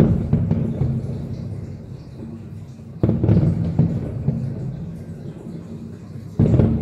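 Fireworks shells bursting: three loud booms about three seconds apart, each followed by a rumbling crackle of many small pops that dies away.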